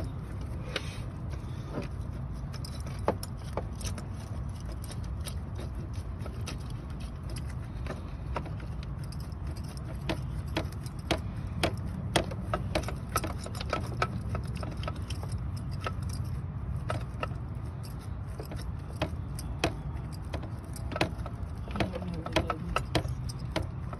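Scattered, irregular metallic clicks and clinks of hand tools and metal parts during work on an alternator in an engine bay, over a steady low hum.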